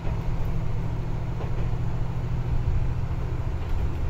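Engine of a Tarumi Railway diesel railcar running, heard from inside the car as a steady low rumble.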